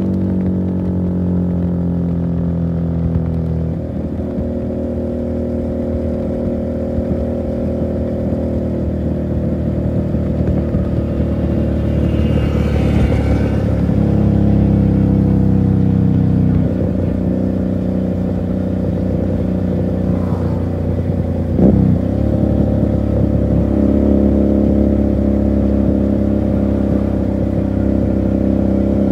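Motorcycle engine and exhaust running under way as the bike is ridden. The pitch climbs slowly and drops sharply with a gear change about four seconds in and again a little past halfway. A short sharp blip comes about three-quarters of the way through.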